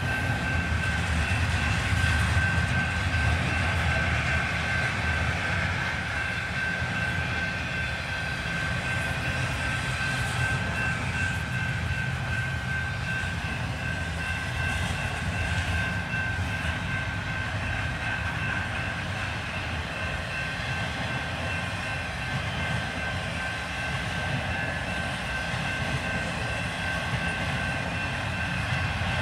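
Intermodal freight train passing over a grade crossing, heard from inside a car: a steady rumble and rattle of wheels and cars, slightly louder in the first few seconds, with a steady high-pitched ring over it.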